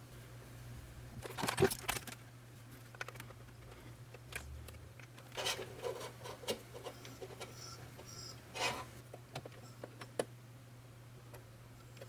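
Scattered handling noises (short clicks, rubs and scrapes) in a small room over a steady low hum, with the loudest cluster about one and a half seconds in and more around the middle and past two-thirds of the way.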